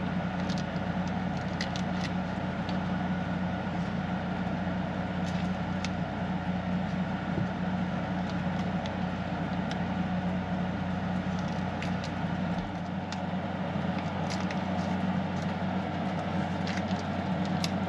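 Steady hum of a small window air conditioner running, with scattered light clicks and handling noises from working raw ground beef out of its packaging. The deepest part of the rumble drops away about two-thirds of the way through.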